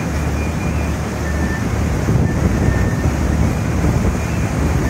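Wind rumbling on the microphone over the low, steady running of the tour boat's engine.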